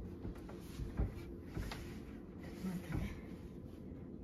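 A few soft knocks and clicks of things being handled, spaced irregularly over a faint low background.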